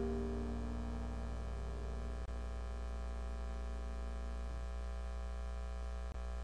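The last piano chord of the background music fading away over a steady low electrical hum.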